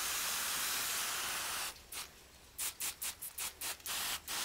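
Water spraying from a watering nozzle onto potted plants in a steady hiss, cutting off about one and a half seconds in and then coming back in a string of short spurts.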